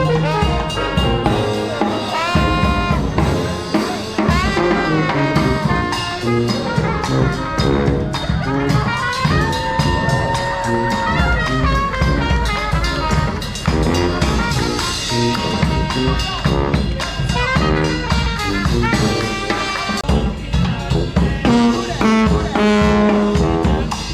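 Street band playing New Orleans jazz: horns over a drum kit, with some notes held for a second or two.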